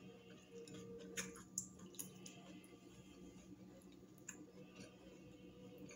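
Faint close-up eating sounds: quiet chewing with a few soft clicks and smacks, a cluster of them one to two seconds in and another a little after four seconds, over a low steady room hum.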